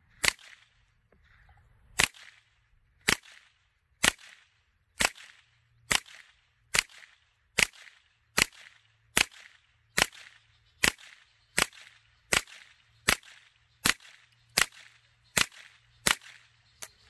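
Suppressed MP5-pattern carbine with a home-built Form 1 suppressor, fired in steady semi-automatic. It makes about twenty sharp shots, a second or a little less apart, the pace quickening slightly, with a weaker last shot near the end.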